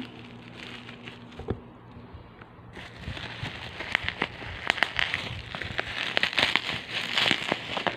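Plastic bubble wrap and a courier mailer bag crinkling and crackling as they are cut and pulled open close to the microphone, with one knock early on and dense crackling from about three seconds in.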